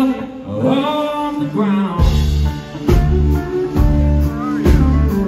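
Live blues-rock band playing. A guitar line rings over a thin backing, then bass and drums come in hard about two seconds in with a steady beat.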